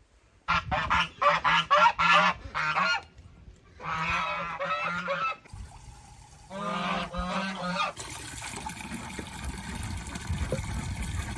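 Geese honking in three loud bouts of rapid, repeated calls, followed by a steady rushing noise from about two-thirds of the way in.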